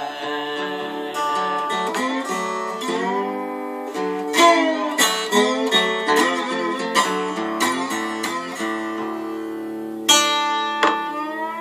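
Guitar played with a brass slide, single notes and chords with sliding pitch. A hard strum comes about ten seconds in, followed by a long slide upward near the end.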